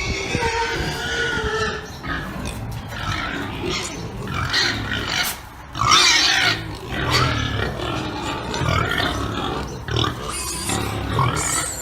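Pigs grunting and squealing without a break: low pulsing grunts under higher, noisy squeals, the loudest squeal about six seconds in.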